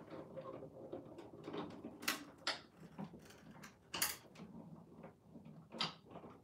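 Scattered light clicks and knocks as a Sizzix die-cutting machine is worked, its plastic cutting-plate sandwich being fed through, with a few sharper taps along the way.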